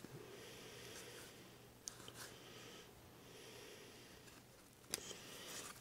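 Faint handling of a stack of Pokémon trading cards: soft rustling as cards are slid from one hand to the other, with a few light clicks, the sharpest about five seconds in.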